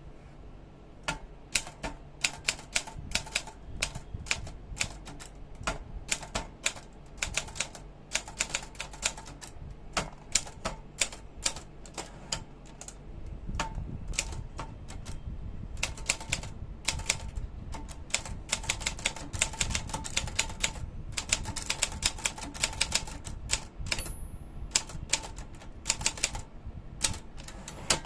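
Olympia Traveller De Luxe manual portable typewriter being typed on: a fast, uneven run of key strikes.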